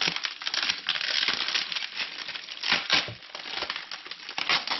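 Paper wrapping and packing tape being pulled off and crumpled by hand: a dense run of crinkling and rustling, with louder bursts about three seconds in and again near the end.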